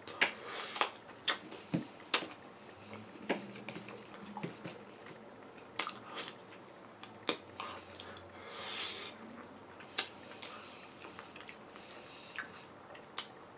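A person biting and chewing chicken wings, with irregular wet smacks and clicks of mouth and teeth.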